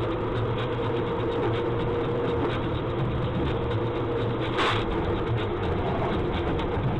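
Steady vehicle running and road noise, with a brief hiss about four and a half seconds in.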